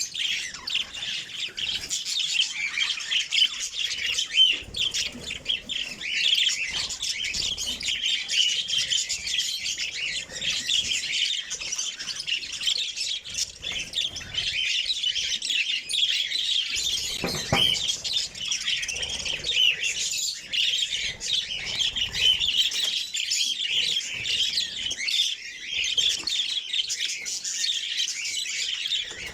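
A flock of caged pet birds chirping and squawking in a dense, unbroken chatter of many high-pitched voices, excited as fresh corn cobs are given to them.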